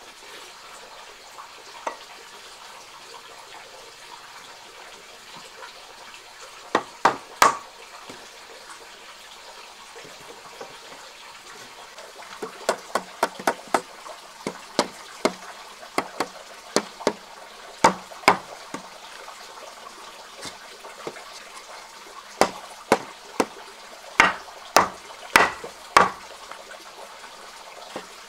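Sharp knocks of a tool striking wood, in irregular groups: a few about seven seconds in, a quick run of lighter ones from about twelve to sixteen seconds, and louder ones about half a second apart near the end, over a steady hiss.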